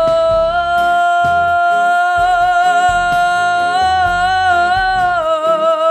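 A woman's singing voice belting one long high note, stepping up in pitch twice and wavering with vibrato near the end, over an instrumental backing track.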